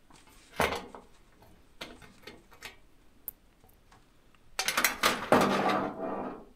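A screwdriver turning a small screw out of an electric oven's metal control panel: a knock under a second in and a few light ticks of the tip in the screw head, then a burst of metal-on-metal scraping and rattling about four and a half seconds in, lasting over a second.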